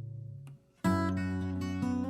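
Acoustic guitar music: a held chord fades away, a brief gap, then a new chord is strummed just under a second in and plucked notes follow.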